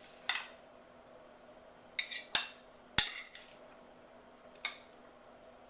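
A serving utensil clinking and scraping against a casserole dish and a plate as the casserole is dished out. There are about five short, sharp clinks, the loudest about three seconds in.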